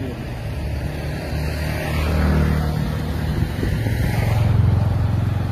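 Motor vehicle engines on the road, a low steady rumble that swells about two seconds in and again near the end as vehicles pass.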